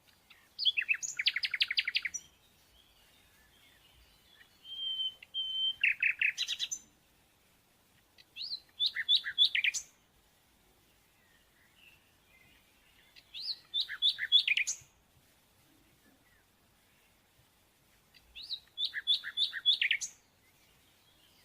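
A songbird singing: five short phrases of rapid, quickly falling notes, one every four to five seconds.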